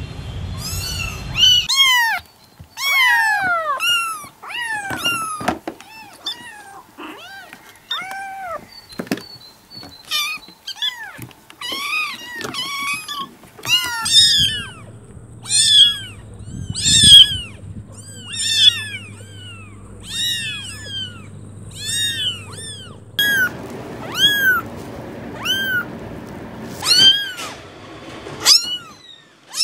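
Kittens meowing: a long run of short, high-pitched mews, roughly one a second, each rising and then falling in pitch.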